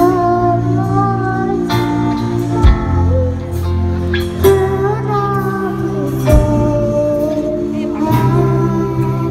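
Young girl singing live into a microphone over an amplified acoustic guitar, heard through a PA, with sustained, gliding sung notes. Two deep thuds fall on the beat.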